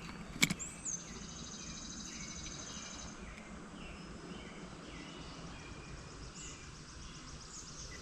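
Birds singing outdoors: a high thin trill in the first few seconds, then repeated short chirping phrases, over a steady background hiss. A single sharp click about half a second in.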